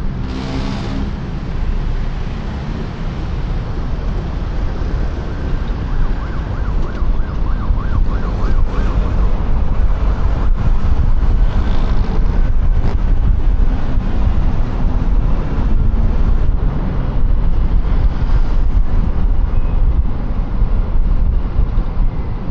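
Wind buffeting a helmet-mounted microphone over the QJMotor Fortress 160 scooter's engine running in road traffic. A siren warbles rapidly up and down for a few seconds, starting about six seconds in.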